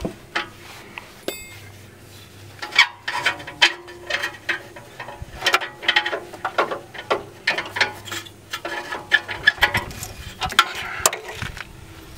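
Irregular metallic clicks and clinks of a wrench and the old oxygen sensor as the loosened sensor is unscrewed by hand from the exhaust pipe.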